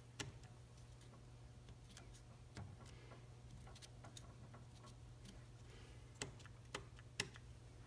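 Near silence broken by a few faint light taps of a paint-dipped cardboard strip pressed onto paper on a wooden desk, three of them close together near the end.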